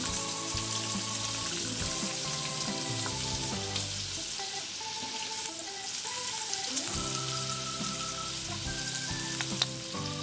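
Sliced onions sizzling as they fry in hot oil in a non-stick kadai, a steady hiss with scattered small crackles. Soft background music with steady notes plays underneath.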